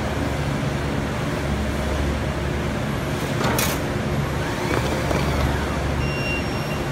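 Semi-automatic weighing and packing machine running with a steady low hum, and one sharp clack about three and a half seconds in.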